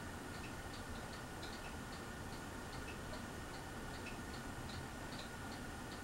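Hunter Silent Breeze ceiling fan running on medium speed with a steady motor hum, and a light, quick ticking of about four ticks a second over it.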